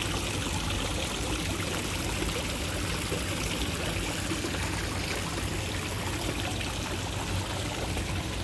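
Steady running, trickling water in a koi pond, with a low steady hum underneath.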